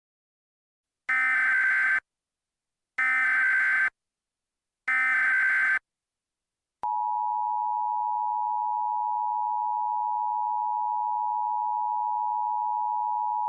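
Emergency Alert System tones. First come three one-second bursts of SAME digital header data, a harsh warbling data tone, here two alerts overlaid so the headers are scrambled. About seven seconds in, the steady two-tone EAS attention signal (853 and 960 Hz) begins.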